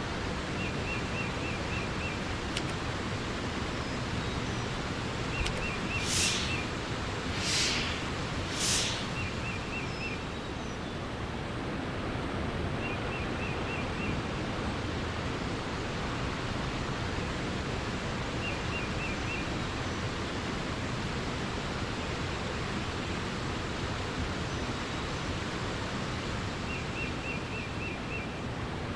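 Steady rush of flowing water, with a small bird repeating a short, high trill of about five quick notes every few seconds. Three brief hissing splashes come close together about a third of the way in.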